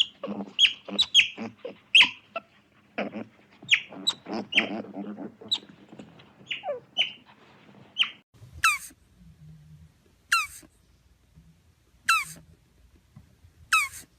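High-pitched animal calls: many short squeaky calls falling in pitch, crowded together for the first half, then single sharp falling calls about every second and a half.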